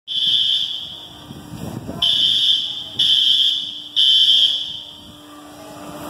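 A building alarm beeping: four loud, high-pitched tones, the first at the start and then about a second apart, each fading away, over a steady low hum.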